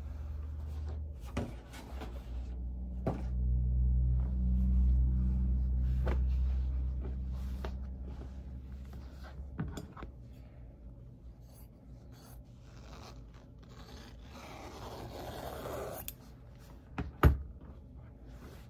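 Fabric being handled on a cutting mat: light taps, scrapes and rustles as the cloth is folded and smoothed, a longer rustle of fabric sliding about three-quarters of the way through, and one sharp click near the end. A low steady hum runs under the first half and stops about halfway.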